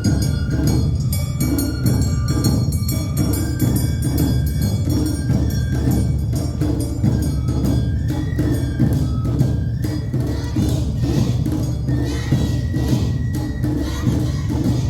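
Awa Odori festival music played live: drums and clanging metal gongs beat a quick, steady rhythm, with held high melody notes over the top.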